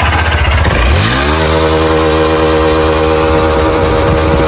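Motorcycle engine running, revved up about a second in and then held at a steady higher speed. It is a high-mileage engine that the mechanic thinks may just need a new cylinder kit, with the piston skirt knocking.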